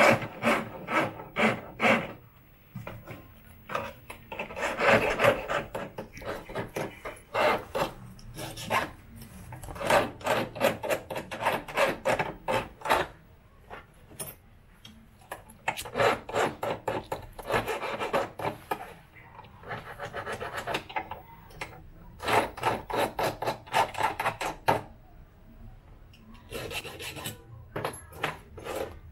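Key duplicating machine's cutter rasping into a key blank in many short strokes, about one or two a second, in groups with brief pauses between.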